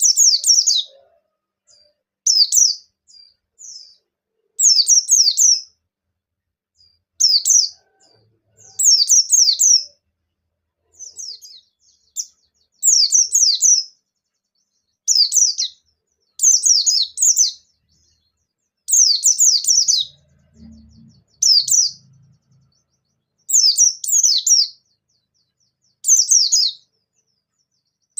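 Pleci bustomi white-eye singing in its full, wild-style song: short, fast bursts of high chirping notes that sweep downward, one burst every second or two.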